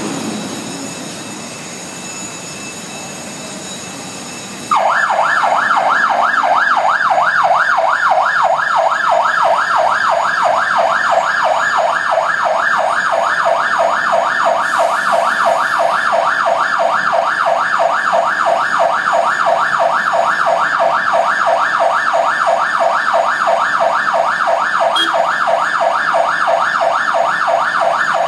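A fire engine's electronic siren switches on about five seconds in and sounds a fast yelp, rising and falling several times a second without a break. Before it comes the running of the truck's engine.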